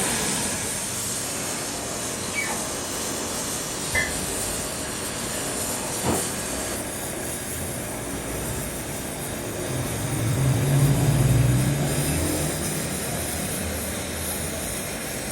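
Steady workshop machinery noise with a hiss, broken by two sharp knocks about four and six seconds in, and a low droning hum that swells louder around ten to twelve seconds in.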